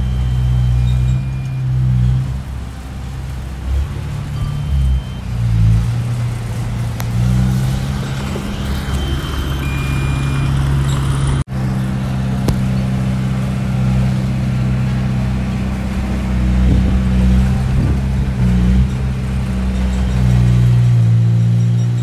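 Small crawler bulldozer's diesel engine running under load as it pushes sand, its pitch shifting up and down as the revs change. The sound cuts out for an instant about halfway through.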